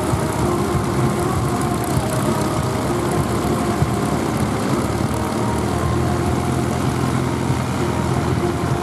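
Steady drone of a propeller aircraft's engine, holding one pitch, with a deeper note growing stronger about halfway through.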